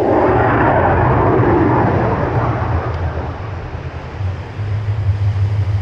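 An aircraft flying past, a loud rushing roar that swells in the first two seconds and then fades away, over a steady low rumble.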